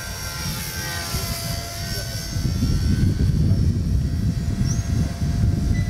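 XK K110 mini RC helicopter flying overhead: the whine of its electric motors and rotors, several steady tones that bend up and down in pitch as it manoeuvres. Under it is a low rumble of wind on the microphone that grows louder about two seconds in.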